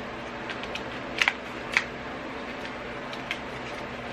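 A few small plastic clicks and taps as a brow pencil and its packaging are handled in the hands, the loudest a quick pair about a second in and another just after, over a steady low hum.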